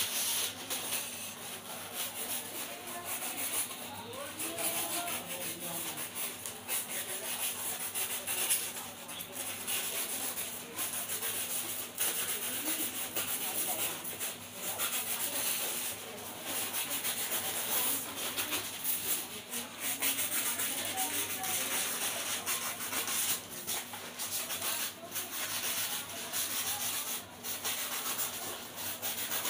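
Continuous rubbing or scraping against the surface of a painted sign board, in uneven back-and-forth strokes, over a faint steady low hum.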